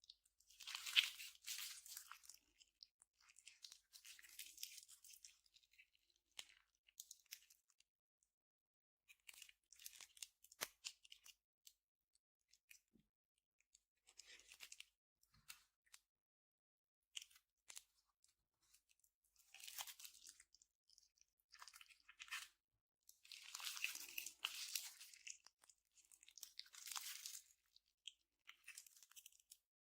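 Slime being squeezed, stretched and pressed by hand, giving irregular bursts of crisp, high crackling and popping with short pauses between them.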